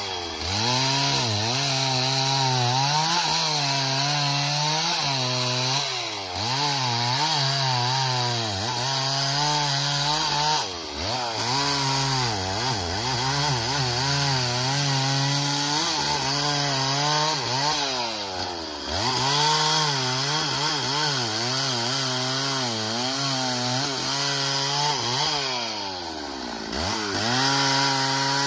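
Stihl two-stroke chainsaw cutting through a thick tree limb, its engine pitch wavering as the chain loads in the wood. The pitch drops sharply and climbs back three times, near 11, 19 and 27 seconds.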